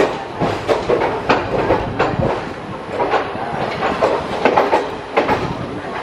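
Passenger train running on the rails: wheels clattering over rail joints and points, irregular sharp clanks over a steady rumble of the moving coaches.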